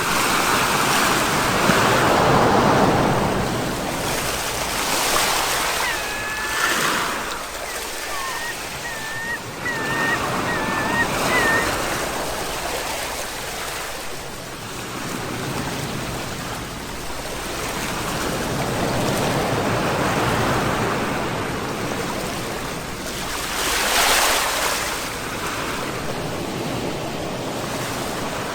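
Sea waves washing onto the shore, a steady rush that swells and ebbs every few seconds. A faint, high, wavering chirp repeats several times between about six and twelve seconds in.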